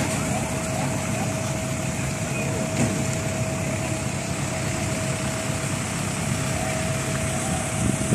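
A motor vehicle engine running steadily, with a constant thin whine over a low hum.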